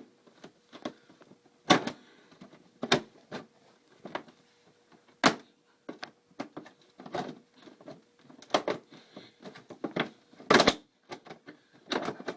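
Plastic knocking and clicking, irregular sharp knocks and taps, as a scooter's plastic headlight assembly is worked into the slots of the front cowling and slid into place.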